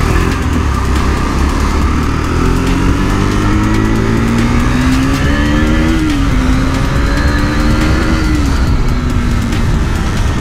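KTM RC 390's single-cylinder engine accelerating hard through the gears: its note rises, drops sharply at an upshift about six seconds in, then climbs again and falls near the end, over steady wind rumble on the microphone.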